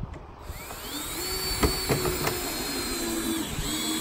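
Cordless drill driving a screw through a steel gate hinge into a wooden rail: the motor spins up in a rising whine, holds a steady high pitch with a few sharp clicks, slows down, then runs again in a short second burst.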